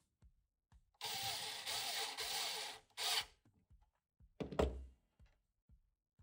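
A small motor or mechanism whirs for about two seconds, its pitch wavering, stops, then gives a short second burst; a single sharp clunk follows about four and a half seconds in.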